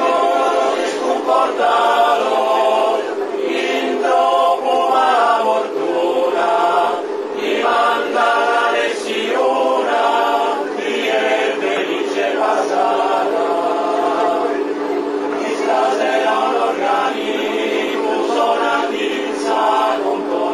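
Men's choir singing unaccompanied: a low note is held steady underneath while the upper voices sing in phrases of a few seconds each.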